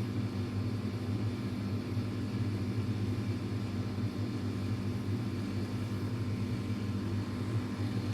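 Steady low hum of background room noise, with no other sound standing out.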